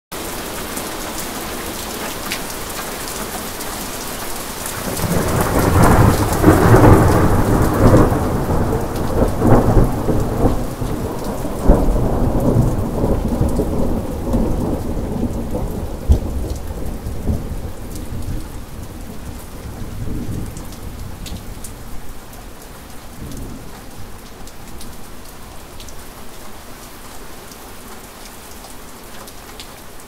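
Heavy rain falling steadily; about five seconds in, thunder breaks out in rumbling peals with a few sharp cracks, loudest over the next several seconds, then fades away, leaving the rain.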